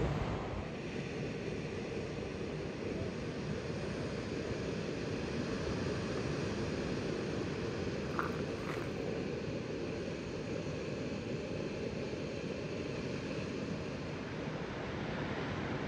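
Steady rushing noise of ocean surf, with no rhythm and little change in level.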